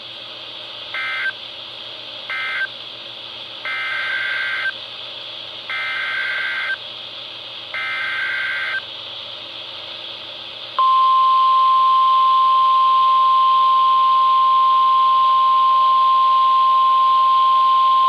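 Emergency Alert System SAME data bursts on NOAA Weather Radio. First come two short warbling chirps, the end-of-message code closing the previous warning, then three buzzy bursts of about a second each, the header of the next severe thunderstorm warning. About eleven seconds in, the loud steady 1050 Hz weather-radio alert tone starts and holds, over a steady radio hiss.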